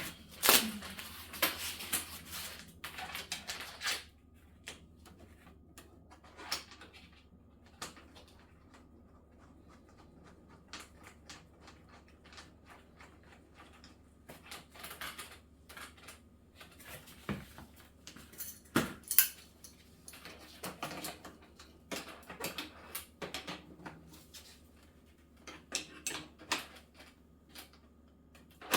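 Scattered clicks, knocks and light clatter, irregular and with several louder ones about a second in and again past the middle, over a steady low hum.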